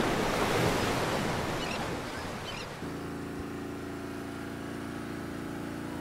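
Ocean-surf rushing from the logo intro, fading away over about three seconds. Then a quieter steady low hum with a few even tones.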